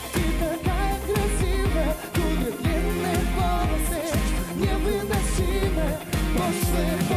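Live rock band playing a song: a man singing lead over electric guitar, bass guitar and a steady drum beat.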